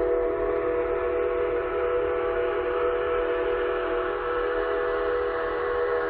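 A train horn sounding one long, steady multi-note chord, with no rise or fall in pitch.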